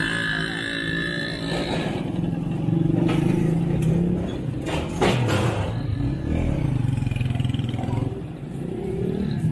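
Small motor vehicle engine running close by, its pitch dipping and rising again, with a couple of sharp knocks about three and five seconds in.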